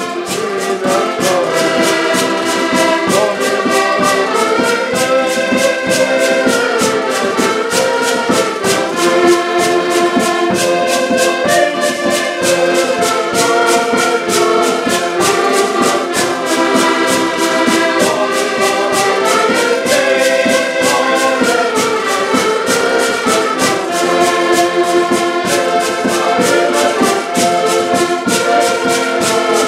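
Several diatonic button accordions playing a lively folk tune together in chords, over a steady fast beat from a long wooden percussion instrument worked with a stick.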